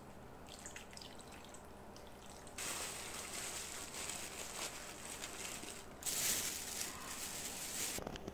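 Marinade poured from a cup into a plastic bag of raw chicken pieces, a steady liquid hiss with the bag crinkling. A louder stretch of plastic rustling follows about six seconds in.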